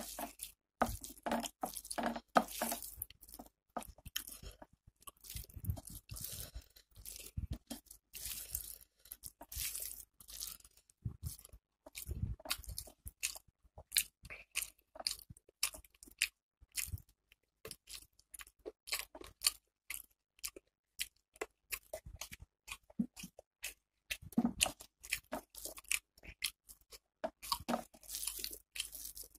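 Close-up chewing of rice with chicken and fish curry eaten by hand: a dense, irregular run of wet chewing and smacking clicks, mixed with fingers working rice around a steel plate.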